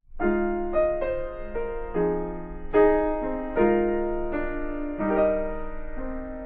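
Piano music: a slow run of sustained chords, changing about once a second, with no singing.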